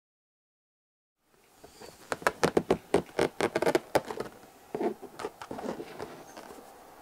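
A rubber balloon being pushed up into the hood of a cotton hoodie: a quick run of short scratchy rubs and rustles of rubber on fabric, starting about a second and a half in and thinning out near the end.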